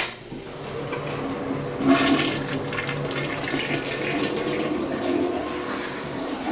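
A toilet flushing: a click at the start, then water rushing through the bowl, loudest about two seconds in and running on steadily as it refills.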